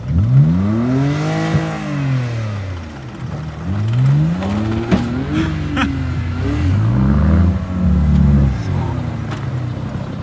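Demolition-derby car engines revved hard on dirt, pitch rising and falling three times as the cars accelerate and back off, with a couple of sharp knocks about five seconds in.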